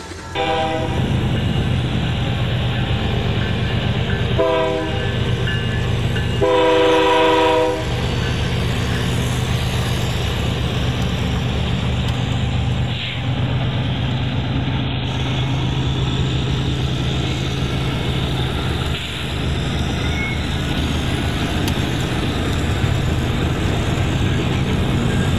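Battery-powered toy diesel train running with a steady motor hum, sounding its electronic horn three times: briefly at the start, briefly about four seconds later, then a longer blast a couple of seconds after that.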